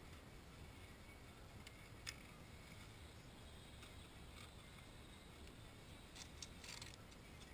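Near silence, with a faint low background and a few light clicks: one about two seconds in and a short run of them near the end. The clicks come from safety wire being pulled off its spool and handled.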